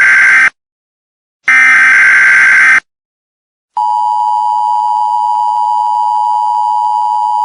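Emergency Alert System tones: the end of one SAME header burst, a buzzy digital data screech, then one more full burst about a second long after a short gap. At about four seconds in, the steady two-tone EAS attention signal starts and holds.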